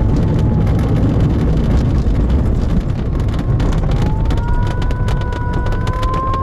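Glider cockpit on the ground after landing: heavy rumble with rattling and knocking, typical of rolling on the main wheel. Through it runs a thin electronic tone, likely the variometer's audio, which dips slightly and then, about four seconds in, slides slowly up in pitch.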